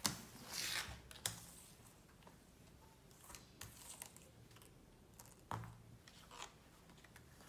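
Paper domino cards being slid and set down on a woven bamboo mat: a short rustling swish near the start, then scattered light taps and clicks.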